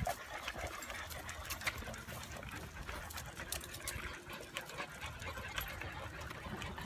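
A pack of dogs on a walk panting, with many light clicks from their claws and tags on the concrete sidewalk.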